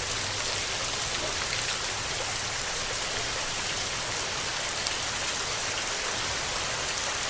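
Steady rain falling: an even, dense hiss of many drops, with scattered sharper drop ticks on top.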